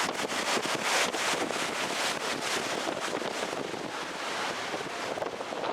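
Wind rushing and buffeting over the microphone on an open canal boat, a steady hiss broken by many short crackles.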